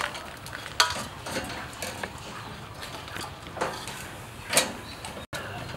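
Metal tongs clinking and scraping on a sheet-metal grill top and a steel bowl, with a run of light clicks and two sharper metallic clinks, one about a second in with a brief ring and another near the end.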